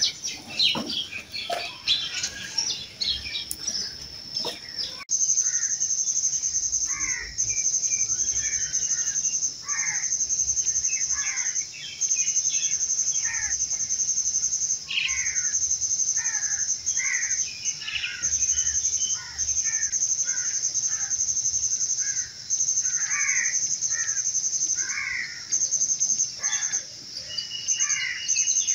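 Birds chirping with many short, falling calls over a continuous high-pitched insect trill that breaks off briefly every second or two. About five seconds in, the background changes abruptly.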